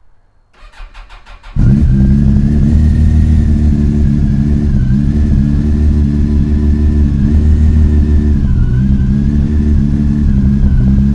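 A 2003 Yamaha FJR1300's fuel-injected inline-four, cold-started at freezing. The starter cranks for about a second, then the engine catches and settles into a loud, steady idle.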